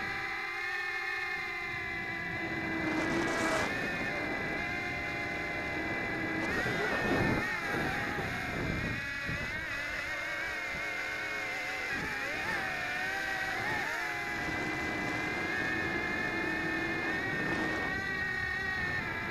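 MJX X800 hexacopter's six motors and propellers whining in flight under the added weight of a keychain camera. The pitch wavers up and down as the throttle is worked. Brief rushes of wind noise come about three and seven seconds in.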